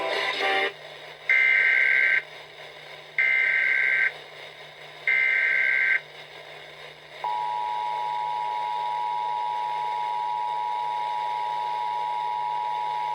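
Emergency Alert System test broadcast over FM radio. It opens with three separate one-second bursts of SAME header data, a harsh warbling digital screech with short pauses between them. About seven seconds in, the steady two-tone EAS attention signal begins and holds unbroken.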